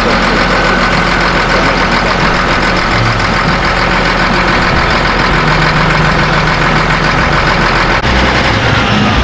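A vehicle engine running steadily, its low note shifting a few times.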